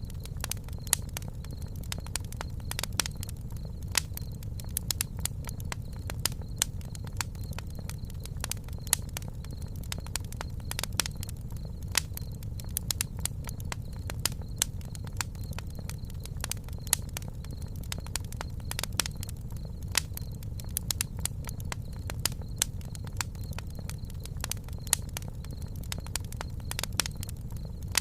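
Campfire burning, wood crackling and popping in irregular sharp clicks over a low steady rumble of the flames.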